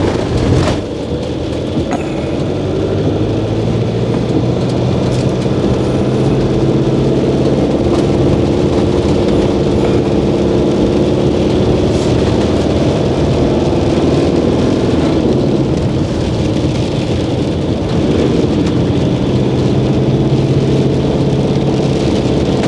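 Motorhome engine running steadily, heard from inside the cab, over the hiss of tyres on a wet road and rain.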